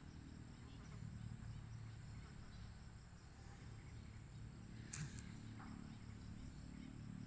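Quiet background tone: a steady high-pitched whine over a low hum, with a single sharp click about five seconds in.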